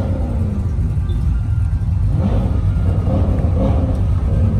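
A car engine idling with a deep, steady rumble.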